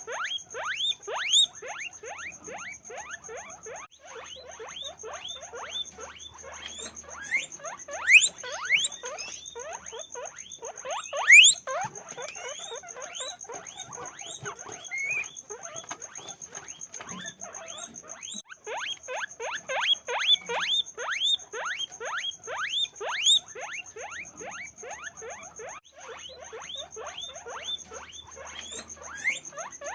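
Several guinea pigs squeaking: a dense, overlapping stream of short falling squeaks, several a second, with a few louder ones about 8 and 11 seconds in. A steady high-pitched tone runs beneath them.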